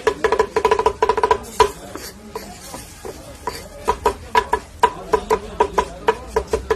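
Rapid rhythmic clacking of metal cooking tools striking a hot plate, as a street cook chops meat on a griddle. Each strike rings at the same pitch. The strikes come in fast runs of about six to eight a second, with a pause of about two seconds partway through.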